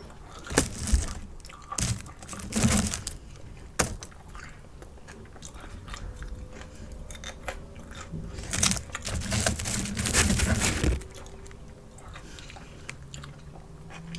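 Close-up eating sounds: a person chewing and crunching salted fast-food french fries in several bursts, with a sharp click about four seconds in and a longer spell of chewing near the end.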